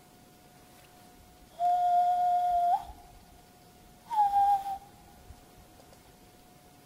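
A man whistling through cupped hands, two calls: a long level note lasting about a second, then after a short pause a shorter note that starts higher and slides down.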